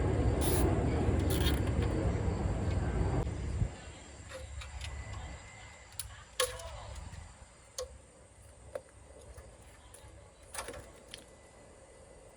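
A loud, steady rumble like a passing vehicle, which cuts off abruptly a few seconds in. After it come scattered light clicks and taps from hand work on parts.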